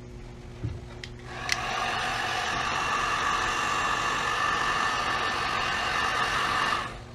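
Heat gun running: it starts about a second in, with a sharp click, and holds a steady whine and rush of air before cutting off shortly before the end. It is heating the thick vinyl headliner so that it can be stretched.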